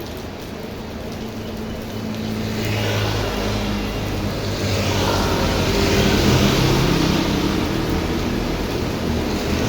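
Heavy rain with a vehicle passing on a wet road: a rushing swell of tyre and engine noise builds from about two seconds in, peaks just past the middle and stays up near the end, with a low hum under the steady rain.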